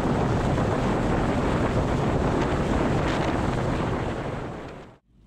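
Wind rushing over the microphone of a moving motorcycle, with engine and road noise underneath; it fades away near the end.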